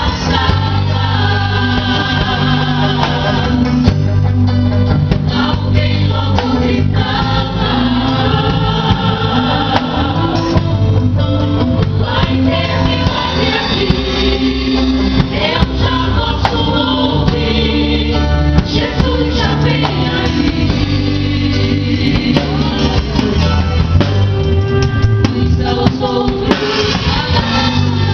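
Gospel worship song performed live: a choir singing over a church band with a strong steady bass.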